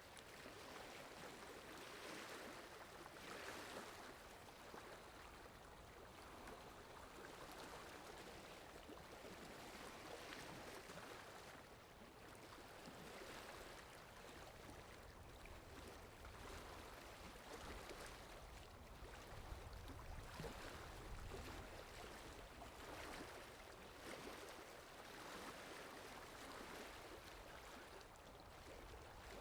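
Faint water sound effect: a soft, steady rushing of water that swells and ebbs every two to three seconds.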